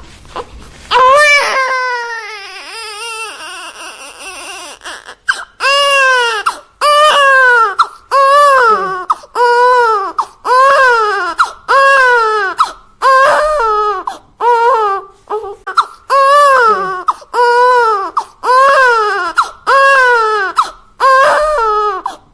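Infant crying hard: a long wail about a second in, then a steady run of about a dozen cries, each rising then falling in pitch, with a quick breath between them.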